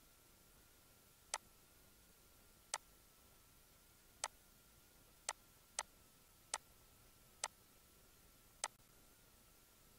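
Computer mouse button clicks: eight sharp single clicks at uneven intervals, half a second to a second and a half apart, over a faint steady high whine.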